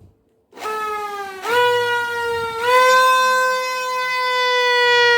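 Toy bhopu horn blown by an electric air blower through a bottle and pipe, sounding one long continuous tone. It starts about half a second in, steps up in pitch twice in the first three seconds, then slowly sags in pitch.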